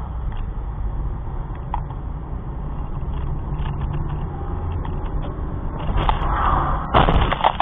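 Car driving over a snowy road, its engine and road noise rumbling steadily in the cabin, with a sudden loud clattering burst of noise about seven seconds in.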